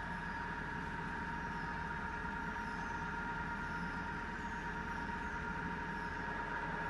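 An all-geared Falconi radial drilling machine running unloaded: a steady mechanical hum with a steady whine of several tones over it.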